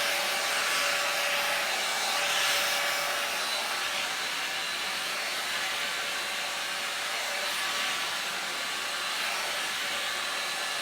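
Two-in-one square hot-air dryer brush running steadily, blowing air as it is worked through hair: an even rushing noise with a faint steady tone beneath it.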